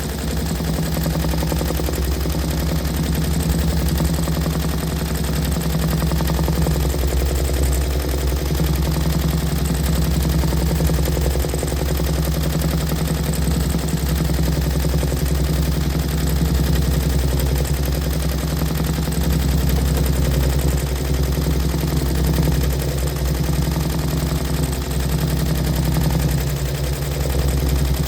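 Embroidery machine stitching continuously: a fast, steady run of needle strokes that keeps an even pace throughout.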